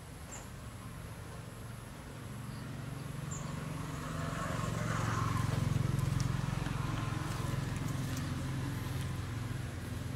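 Engine hum of a passing motor vehicle, growing louder through the middle and easing off toward the end.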